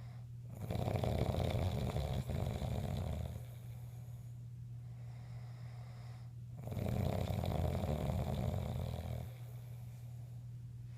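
A man snoring loudly in his sleep: two long, rasping snores, each lasting about two and a half seconds, about six seconds apart.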